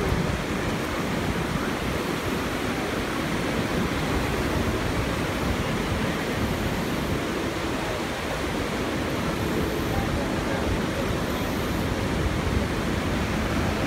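Steady road and wind noise inside a car driving along a highway.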